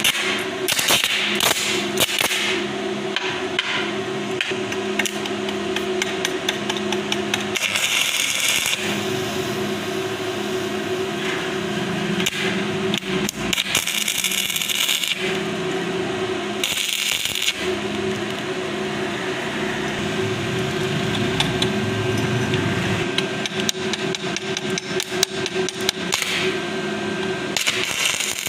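Stick (shielded metal arc) welding on steel: the electrode's arc crackling and spitting continuously, over a steady hum. There are a few short stretches of sharper hiss.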